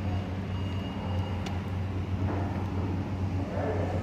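A steady low mechanical hum of running machinery, with a light click about one and a half seconds in.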